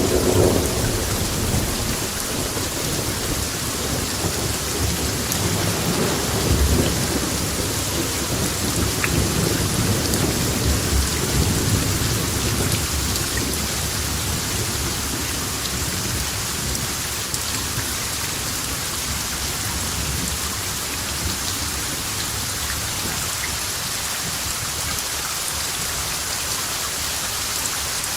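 Steady heavy rain hissing down, with low rolling thunder rumbling through the first half and dying away by about halfway.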